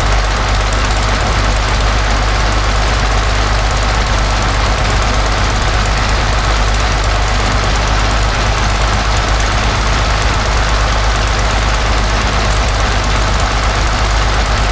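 Rolls-Royce Merlin XX V12 aero engine running steadily on a test stand, its propeller turning, with no change in speed.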